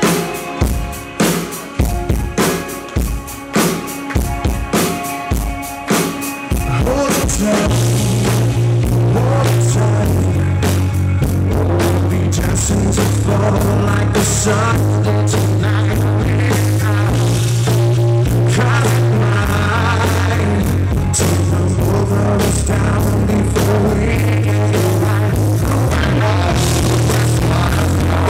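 Live rock band starting a song: a drum beat alone for the first six seconds or so, then the full band comes in with a heavy bass line under a male lead vocal. Recorded loud and distorted from right beneath a PA speaker.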